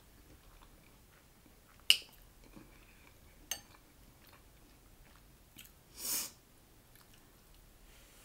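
Eating taco soup: a metal spoon clinks sharply against the glass bowl about two seconds in and again more lightly at about three and a half seconds, with a short slurp near six seconds and quiet chewing between.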